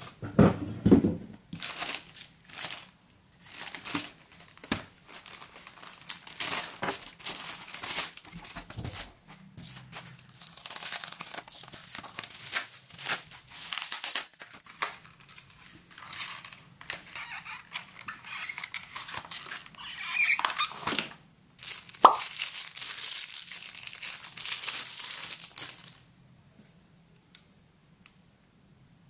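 Plastic courier mailer being torn open and its contents unwrapped by hand: tearing and crinkling of plastic packaging in irregular bursts, loudest in a stretch near the end.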